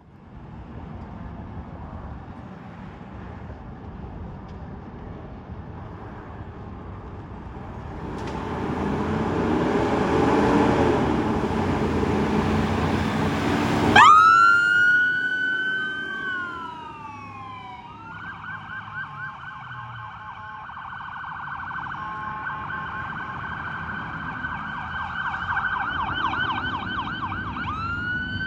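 Fire truck responding with its siren: engine rumble, then a loud rush of noise building for several seconds. About halfway through, an electronic wail rises sharply and falls, switches to a fast yelp a few seconds later, and wails up again near the end.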